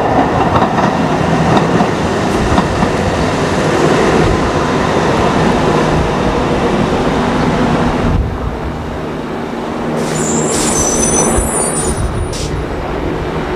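Siemens-Duewag light rail car running past close by with a steady rumble of wheels on track. About two-thirds of the way through, the sound cuts to a car running into a station, with high-pitched wheel squeal from the rails for a second or two.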